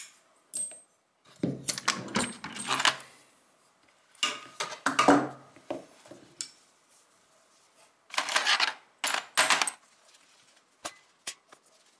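Small steel rifle trigger-group parts clinking and being handled, with cloth rubbing, in three or four short bursts with quiet between and a few light clicks near the end.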